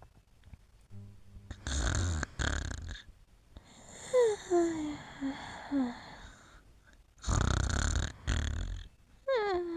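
A sleeper snoring twice, about two and seven seconds in. Between the snores comes a run of short high whimpers, each falling in pitch, and another begins near the end: sleep sounds of dreaming.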